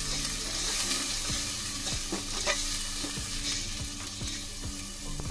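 Metal spoon stirring curd into a sizzling spiced masala in a metal pot: a steady frying hiss with light clicks of the spoon against the pot.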